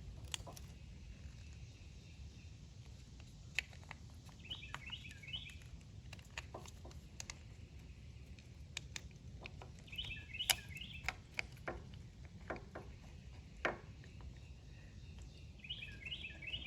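A bird calling a short phrase of three or four quick chirps, repeated about every five to six seconds, over a steady low hum. Scattered light clicks and taps come between the calls.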